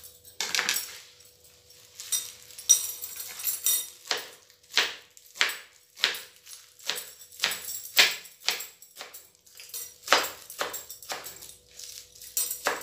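Kitchen knife chopping fresh spinach leaves on a plastic cutting board. A few softer, irregular strokes come first, then about four seconds in a steady run of crisp taps, about two a second, each one the blade cutting through the leaves onto the board.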